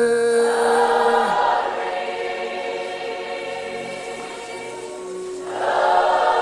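Gospel worship choir singing slow sustained chords. A long held note ends about a second in, and the choir swells up again near the end.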